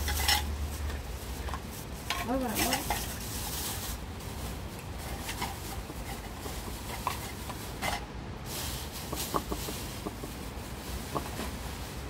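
Dogs eating from a bowl: scattered clicks and clinks of food and teeth against the bowl. A brief call that rises and falls in pitch comes about two seconds in.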